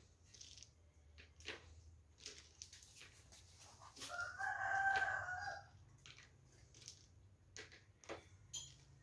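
A rooster crows once, about four seconds in, a single call lasting under two seconds. Light clicks and taps come and go around it.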